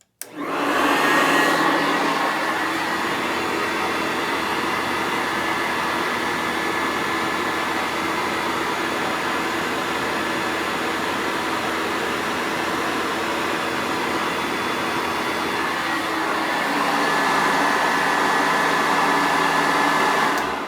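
Sanitaire wide-track upright vacuum switched on, running steadily with a high whine, then switched off near the end, its motor winding down. It is running while its current draw is measured, coming to about 7 amps.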